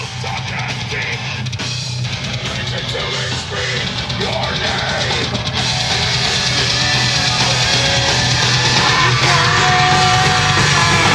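Heavy rock music with a band and singing, growing gradually louder.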